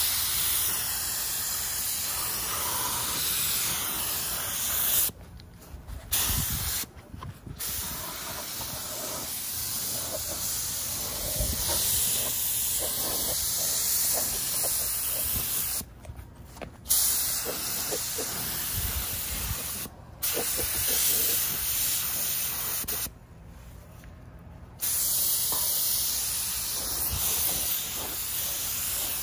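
Compressed-air gravity-feed spray gun spraying primer: a steady hiss of air and atomised paint, cut off and restarted about five times as the trigger is released for a second or so.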